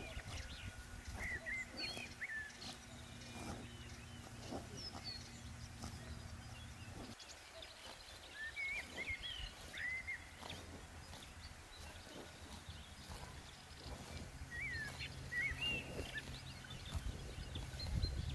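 Outdoor rural ambience: small birds giving short chirps in three clusters, over scattered faint knocks and a low steady rumble. The rumble drops out about seven seconds in and returns near the end.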